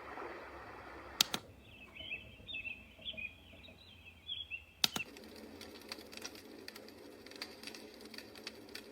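Color Noise sound machine switching between its built-in soothing sounds, with a sharp click about a second in. A few seconds of high chirping follow, then another click near the five-second mark, then a soft crackling, ticking noise track.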